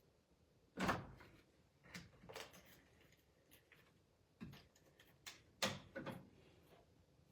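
Craft supplies being handled and set down on a work table: a series of light knocks and clatters, the loudest about a second in and again near six seconds.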